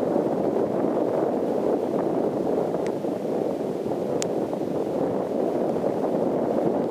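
Steady muffled rushing of wind buffeting a waterproof Contour Roam 2 action camera lying in a shallow tidal pool, heard through its sealed housing, with a few faint sharp ticks around two to four seconds in.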